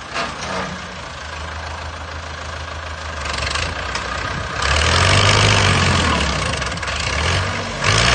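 Engine of a heavy machine running steadily, then growing much louder and rougher about four and a half seconds in. It eases off briefly near the end and then picks up again.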